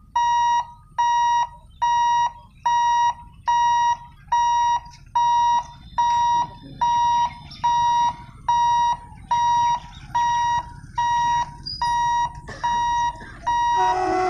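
Level crossing warning alarm beeping steadily, one high electronic tone repeating about one and a half times a second, while the barriers are down for an approaching train. Just before the end an approaching locomotive's horn starts to sound.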